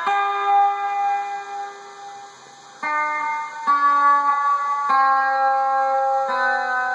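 Acoustic guitar played slowly: five notes or chords picked one after another, each left to ring, with a lull as the first dies away before the next is struck.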